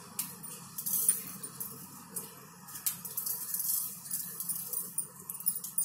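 Dried red chillies frying in hot ghee and oil in an iron kadai: a light sizzle with irregular crackles and pops, the start of a tempering.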